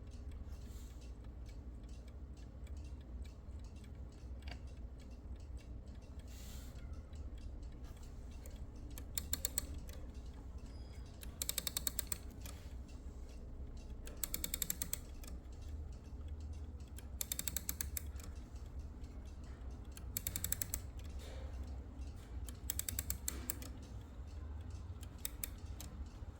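Antique Junghans B32 alarm clock being wound with its key: short spells of rapid ratchet clicking, one for each turn of the key, about every three seconds from about nine seconds in.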